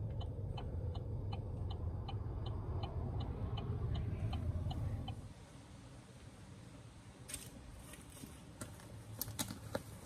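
Low rumble of a pickup truck heard from inside the cab, with a light ticking about four times a second; it cuts off about five seconds in. After that, a quiet outdoor hush with scattered soft rustles and clicks.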